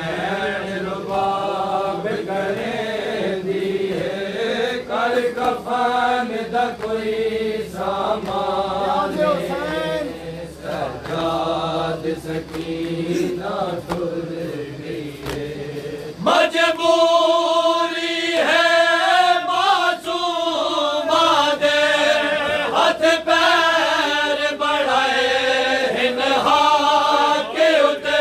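Male reciters chanting a noha, a Shia mourning lament, unaccompanied. About sixteen seconds in, the chanting becomes louder and higher-pitched.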